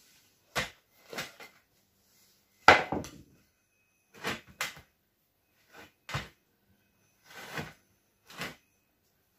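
Freshly baked loaves being turned out of metal loaf tins onto a wire cooling rack: about ten separate knocks and clunks of tins and crusty loaves, the loudest about three seconds in.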